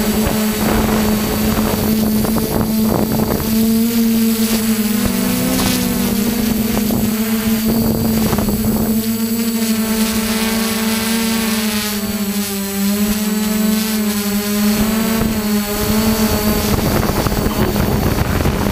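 Quadcopter drone's propellers and motors humming steadily close to the microphone, with wind noise; the pitch wavers briefly about five seconds in.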